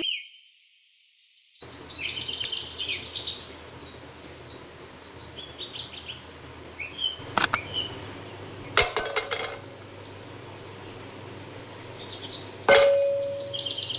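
Many birds chirping over a steady low hum, with sharp clicks about seven and nine seconds in and a click with a short ringing ding near the end.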